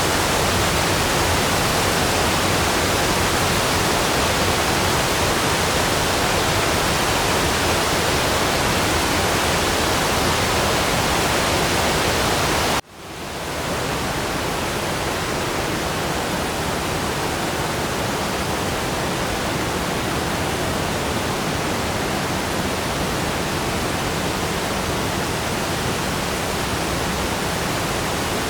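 Waterfall: steady rushing, falling water. About 13 seconds in it cuts out for an instant and fades back up a little quieter.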